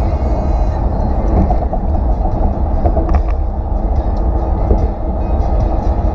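Steady road and engine noise of a car cruising at freeway speed, heard from inside the cabin.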